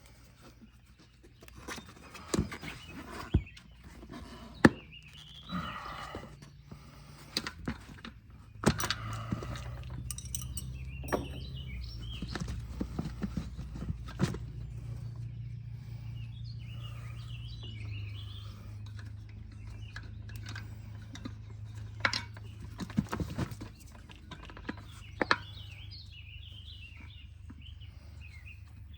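Knocks, clicks and scraping of hand work on a bicycle, irregular and sharp, with a low steady hum setting in about nine seconds in.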